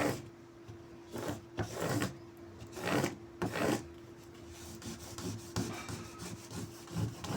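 Plastic squeegee rubbed firmly over a vinyl sticker, about five short scraping strokes in the first four seconds, then fainter rubbing; the letters are being pressed down because one was not stuck properly. A faint steady hum runs underneath.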